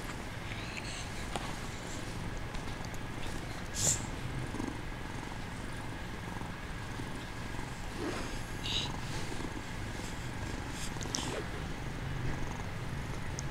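Bengal kitten purring steadily in a low rumble, with a few soft rustles and one short knock about four seconds in.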